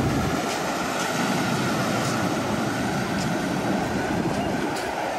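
Wind buffeting the microphone, mixed with the steady wash of surf breaking on the beach.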